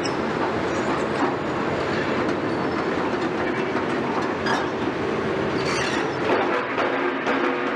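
Caterpillar 319D hydraulic excavator's diesel engine running steadily under load, with scattered knocks and clatter as its bucket works in demolition rubble.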